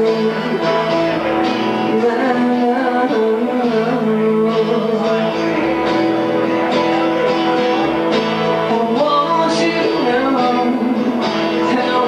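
Live band playing a song, with an acoustic-electric guitar, an electric guitar and a bass guitar, and a voice singing over them.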